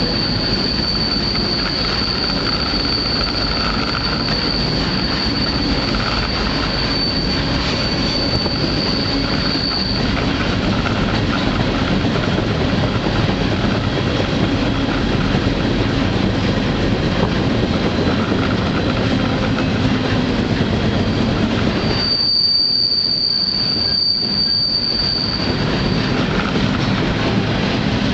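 Freight train running, heard from on board: a continuous rumble of wheels and cars on the rails. A high, steady wheel squeal sounds over it for the first ten seconds or so, and again for a few seconds near the end.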